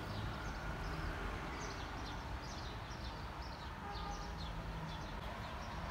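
Small birds chirping, short high downward chirps repeating several times a second, over a low steady rumble.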